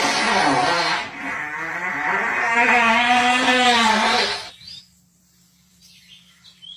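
A long fart noise: a sputtering rush for about a second, then a buzzy, steady-pitched blare for about three seconds that stops suddenly.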